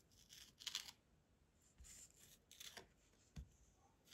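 Faint rubbing and scratching of a rubber masking-fluid pickup eraser on watercolor paper, peeling up dried masking fluid in a few short strokes, with a soft knock near the end.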